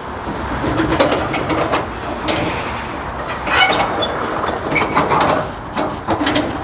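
Semi truck and trailer rolling down a steep ramp: a steady low engine rumble under repeated irregular knocks and rattles, with a few short high squeals.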